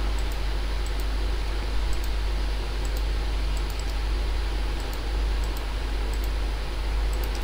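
A steady low electrical hum and hiss, with faint light clicks of a computer mouse every second or so.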